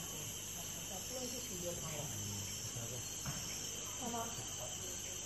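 Steady chorus of forest insects, crickets or cicadas, shrilling without a break as several constant high-pitched tones layered together.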